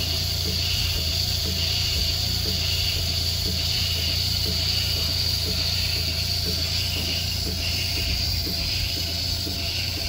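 Robotic milking machine running with its teat cups on a cow: rhythmic pulsator ticking, about two a second, over a steady hum and hiss from the vacuum system.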